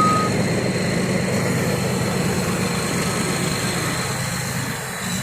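Large diesel engine running steadily at a low, even speed, growing a little quieter near the end.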